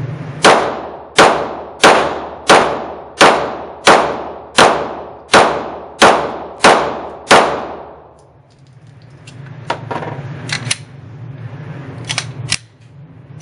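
Smith & Wesson M&P9 9mm pistol firing about ten shots in sustained rapid fire, evenly paced at about one and a half shots a second, each crack trailing off in the range's echo. A few fainter sharp cracks and clicks follow.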